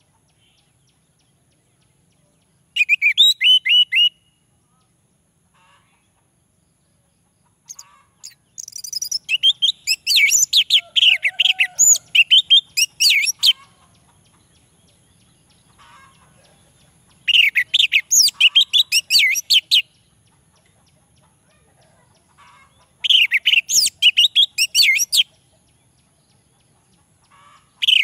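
Male orange-headed thrush singing: four bursts of quick, varied, whistled phrases with pauses between them. The longest burst falls near the middle.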